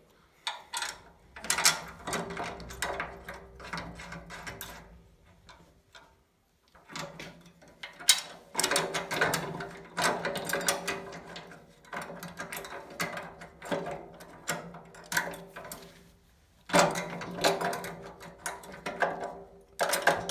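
Rapid metallic clicking and rattling in several bursts with brief pauses: M10 cap-head bolts with spring washers being handled and threaded by hand into a steering rack's bevel box.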